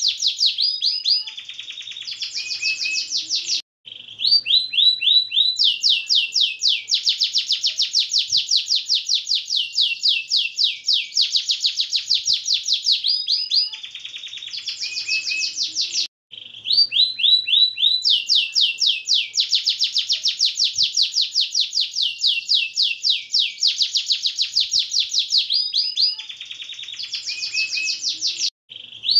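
Domestic canary singing a long song of fast rolling trills and rapid note series, broken by short pauses about four seconds in, at about sixteen seconds and near the end.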